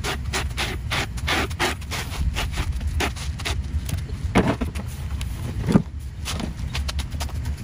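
Rake scraping grass clippings across a concrete driveway in quick repeated strokes, followed by a few separate louder scrapes and knocks as the clippings are gathered into a plastic yard bin.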